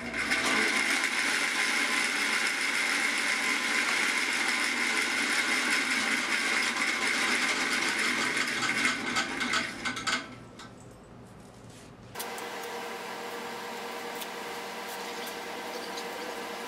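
Band saw running steadily while a banana is pushed into the blade to cut it open; the saw stops about ten seconds in. After a short lull a quieter steady hum runs on and stops abruptly near the end.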